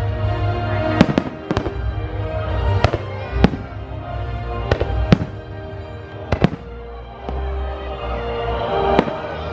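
Fireworks bursting in a series of sharp bangs, about ten, at irregular intervals, over a fireworks-show music soundtrack with a steady low rumble.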